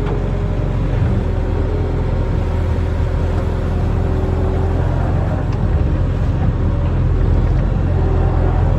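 Barge-mounted excavator's diesel engine running steadily with a deep, even drone, joined in the first half by a faint thin whine.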